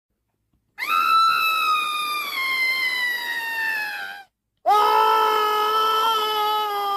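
Worldwide co Halloween sound machine playing one of its recorded spooky effects: two long, high, scream-like cries, the first slowly falling in pitch, the second lower and held steadier.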